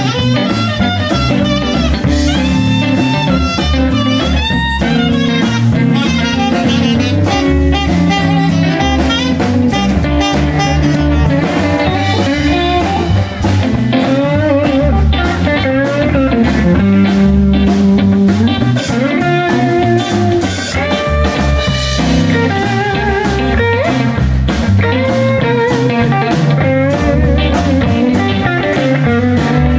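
Live blues band playing an instrumental break: an electric guitar leads with bending, wavering lines over drum kit and bass guitar.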